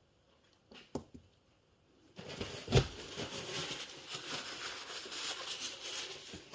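A click, then a knock and continuous rustling and scraping, as small motor parts are handled and worked by hand on a workbench.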